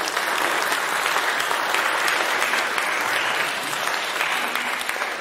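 Audience applauding: dense, steady clapping that starts to thin out near the end.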